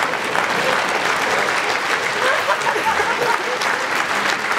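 Theatre audience applauding, dense and steady clapping, with some voices in the crowd.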